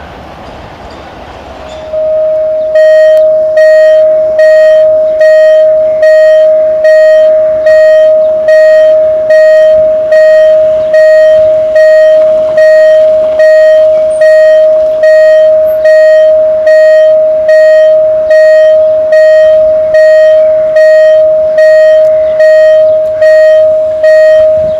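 Railway level crossing warning signal sounding for an approaching train. It gives a loud electronic beep on one steady tone, repeated evenly a little more than once a second, starting about two seconds in.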